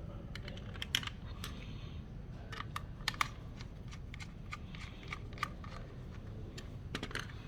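Scattered light clicks and taps of small plastic parts being handled on a table, several in a cluster about a second in, a few more around three seconds in and a pair near the end, over a low steady hum.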